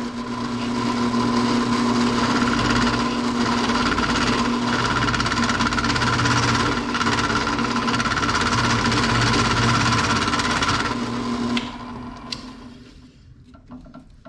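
Drill press running, with a dull carbide cutter scraping a spinning piece of plastic cutting board: a steady motor hum under a rough cutting noise. The sound stops about eleven or twelve seconds in and dies away.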